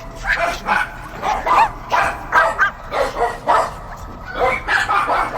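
Dogs barking: a continuous run of short, quick barks, about two or three a second.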